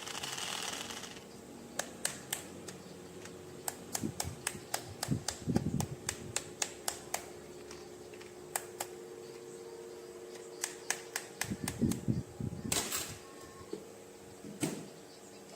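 Irregular sharp clicks and taps of hard plastic toy parts being handled, with a few duller knocks and a short rustle near the end.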